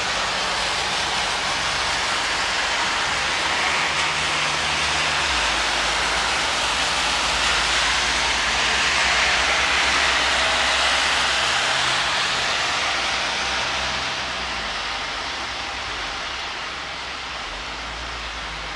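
Traffic on a rain-soaked street: tyres hiss on the wet road, swelling to a peak about halfway through as vehicles pass, with a low engine rumble under it, then fading toward the end.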